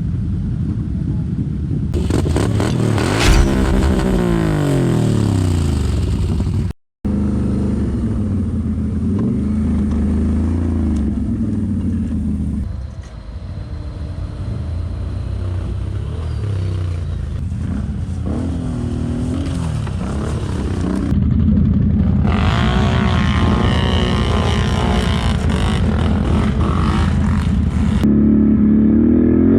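ATV engines running and revving hard, their pitch sweeping up and down as the throttle is worked and the quads pass. The sound cuts out completely for a moment about seven seconds in.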